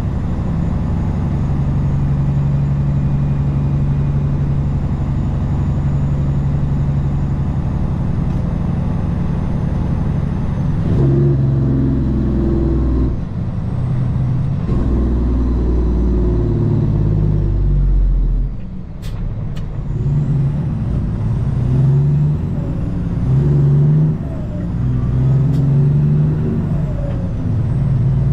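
Semi truck's diesel engine heard from inside the cab, running steadily at first. About a third of the way in it starts changing through the gears, with short dips in level and the engine note climbing again after each. A few sharp clicks come about two-thirds of the way in.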